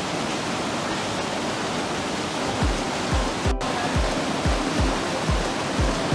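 Steady rush of flowing water from a stream or small waterfall. About two and a half seconds in, a music track's deep kick-drum beat comes in over it, about two beats a second.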